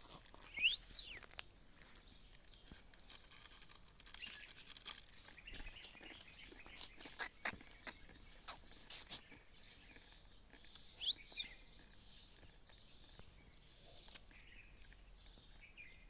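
Rose-ringed parakeet calling: a few short, high gliding squawks, one about a second in and a louder one near eleven seconds, with scattered sharp chirps and clicks between them.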